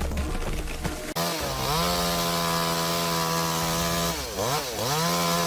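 Background music for about the first second, then a chainsaw comes in abruptly and revs up to full throttle, running steady. A little past four seconds in, the throttle drops and picks up again twice.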